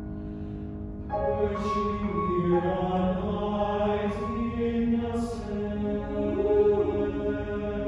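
Mixed choir singing in parts: a held piano chord fades, then about a second in the voices come in together on a sustained, moving chord, with a few sung 's' sounds hissing through.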